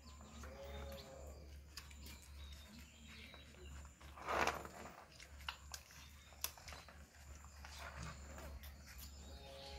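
Rottweiler puppies suckling at their mother, with faint scattered smacking and clicking sounds. A short pitched call comes about half a second in and again near the end, and a brief loud breathy rush about four seconds in.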